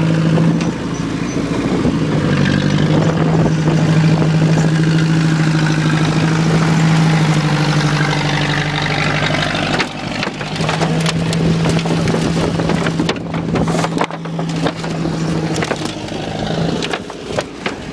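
An engine idles steadily while a crushed vinyl pool is lifted and dragged by hand across the grass, the plastic crinkling and crackling, most densely from about ten seconds in.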